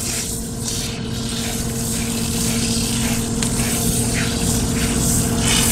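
Steady hum of a recirculating dog-bath pump with water hissing through the system, and the scratchy rub of a slicker brush stroking through a wet, soapy double coat.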